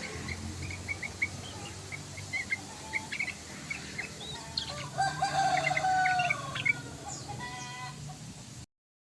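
Yellow-vented bulbul calls: a run of short chirps, then a busier burst of calls and a quick trill of notes, over a steady low hum. A rooster crows about five seconds in. The sound cuts off suddenly just before the end.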